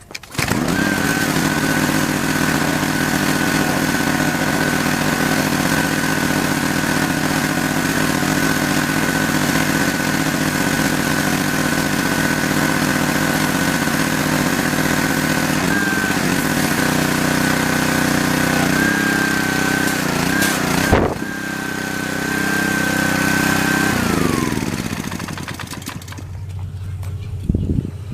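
Pressure washer running steadily, a high whine from its motor and pump over the hiss of the water spray. Near the end its pitch wavers a few times, there is a sharp click, and then the motor winds down and stops.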